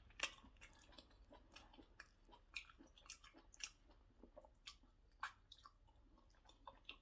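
Faint close-up mouth sounds of chewing soft white starch and egusi soup: irregular wet smacks and small clicks, the loudest just after the start and again about five seconds in.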